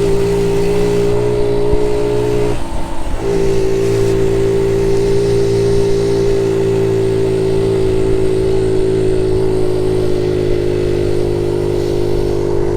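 Honda Z50J Monkey bike's small single-cylinder four-stroke engine running steadily under way, with a brief break in the engine note about two and a half seconds in before it picks up again.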